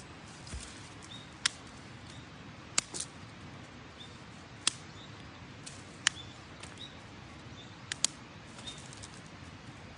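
Sharp, dry cracks and snaps at irregular intervals, about seven of them, twice in quick pairs, over a steady low hiss. Short high chirps of small birds recur through it.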